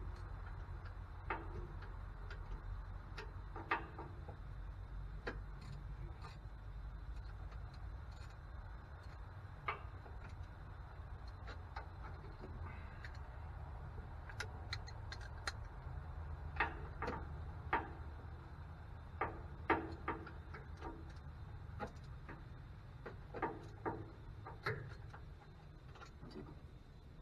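Scattered, irregular metallic clicks and clinks of hand tools on a truck engine's turbo plumbing, over a steady low hum.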